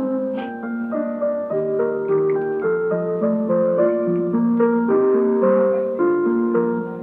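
Background piano music: a gentle melody with chords, notes changing every half second or so.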